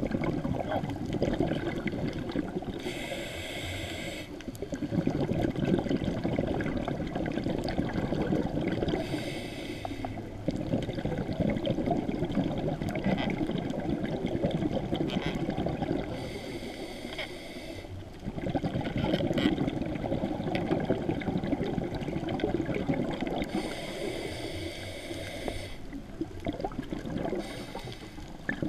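Scuba diver breathing through a regulator, heard from inside an underwater camera housing: a short hissing inhale five times, each followed by a long rumble of exhaled bubbles.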